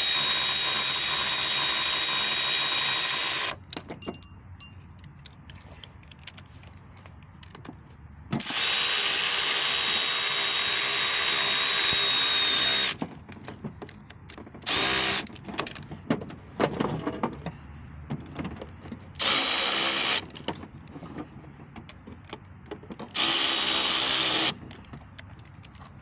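Cordless power tool running in bursts as it spins a socket to drive in the bolts of a driveshaft U-joint's strap clamps. Two long runs of about four seconds each come first, then several shorter ones.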